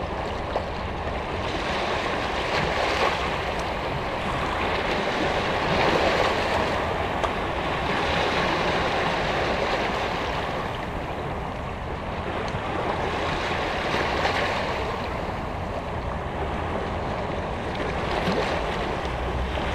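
Small Caspian Sea waves washing over boulders and a flat rock shelf at the water's edge. The hiss of water swells and falls back every few seconds as each wave comes in.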